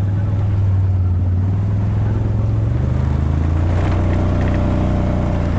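An engine running steadily, its pitch dropping a little about halfway through.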